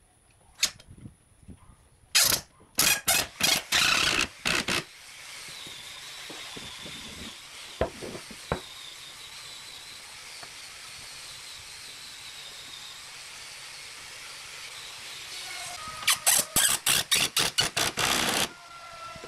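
Cordless impact driver driving wood screws into a pine frame in two runs of rapid hammering, one about two seconds in and the other near the end. Between them there is a steady background hiss and a couple of sharp clicks.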